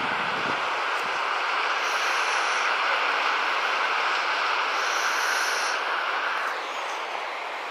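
Steady rushing outdoor noise with no distinct events, and a faint high hiss that rises and fades about every three seconds.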